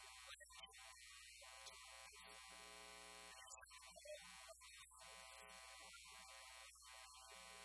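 Near silence with a faint, steady electrical hum and buzz.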